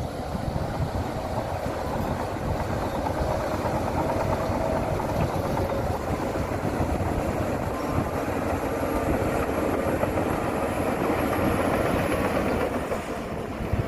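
Heavy diesel earthmoving machinery running steadily under load, a continuous dense engine and machine noise that eases slightly near the end.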